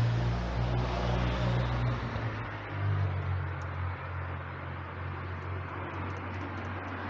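Street traffic: a motor vehicle's engine running with a low hum that shifts in pitch, louder for the first couple of seconds and then settling to a steady rumble over the traffic noise.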